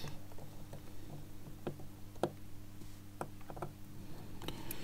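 Watchmaker's screwdriver working the small screws of a Seiko 6139 chronograph movement's automatic winding bridge: a few scattered faint ticks and clicks of metal on metal, over a low steady hum.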